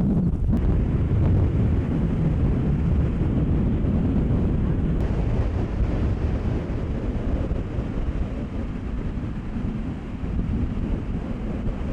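Strong wind on the microphone: a steady low rumble of buffeting.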